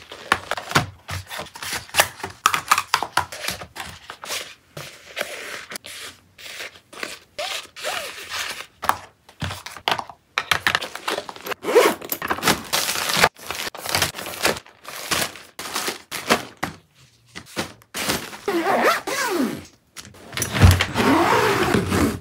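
Packing handling sounds: fabric organizer bags and a cosmetic pouch unfolded, zipped and set down on a wooden floor, with rustling, scraping and many soft thuds and clicks. A heavier thump near the end as the hard-shell suitcase is handled.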